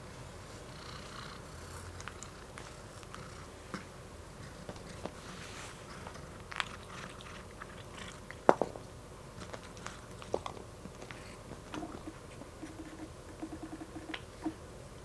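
A cat eating dry kibble from a glass bowl: scattered crunches and clicks, with one sharp click about eight seconds in, and the crunching growing dense over the last few seconds.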